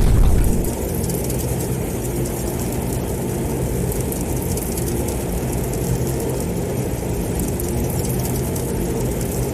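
Airplane engines droning steadily as a low, even rumble, louder for the first moment and then settling to a constant level.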